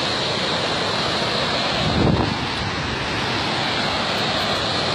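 Steady wind buffeting the microphone, with a stronger gust about two seconds in.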